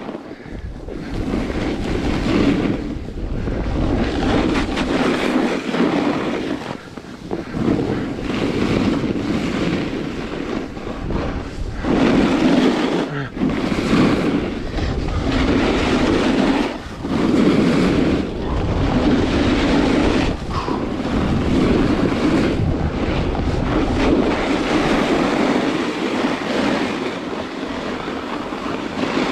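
Wind rushing over the microphone during a fast downhill run on packed snow, with the scrape of edges on the snow swelling and fading at each turn, about every one to two seconds.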